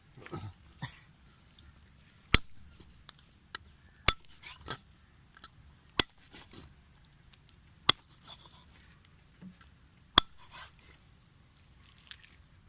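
Five sharp knocks, about two seconds apart, with rustling, scraping and light clinks between them: knife and utensil work during food preparation.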